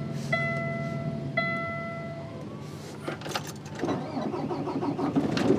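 Semi truck's warning buzzer sounding in a few one-second beeps at key-on, then a few clicks and the diesel engine cranking and starting on a cold morning, getting louder near the end.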